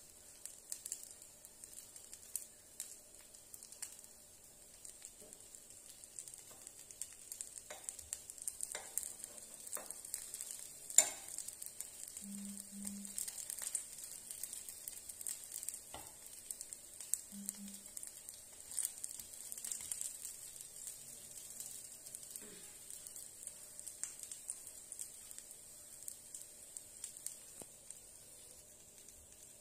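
Faint sizzle and crackle of a sandwich toasting in a frying pan, with a single sharp click about eleven seconds in.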